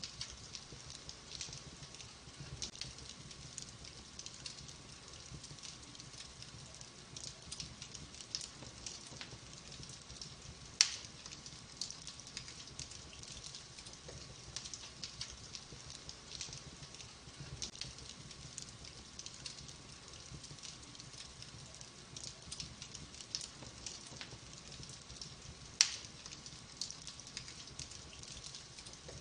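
Wood fire in a fireplace crackling steadily with many small pops and snaps, and two louder sharp pops, one about eleven seconds in and one near the end.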